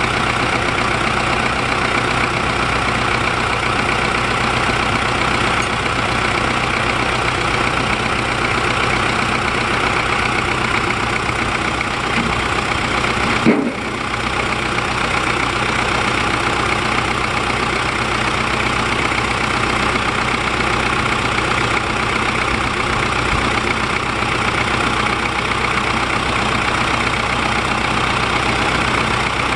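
Diesel engine, out of its vehicle and mounted on the ground, idling steadily during a test run after repair. A short click and a brief dip in the sound come about halfway through.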